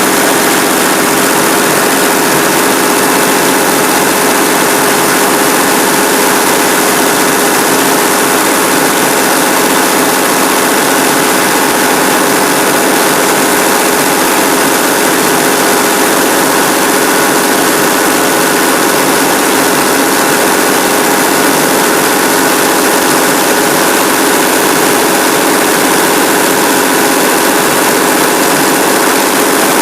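Restored Frick 00 circular sawmill running at a steady pace, its Cummins diesel power unit and spinning saw blade making a loud, unchanging drone with a faint steady hum.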